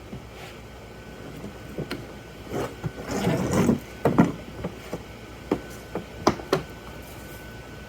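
Scattered light knocks and clicks, with a short stretch of rustling, clattering noise about three seconds in, over a faint steady hum.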